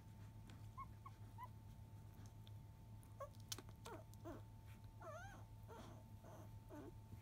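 Five-day-old Labrador retriever puppies squeaking and whimpering faintly: a few short high squeaks about a second in, then a run of longer falling, wavering whimpers from about three seconds on.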